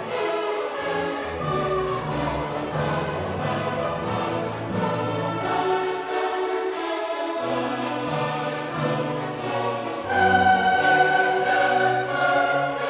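Background classical music: a choir singing with an orchestra, in sustained chords that swell louder about ten seconds in.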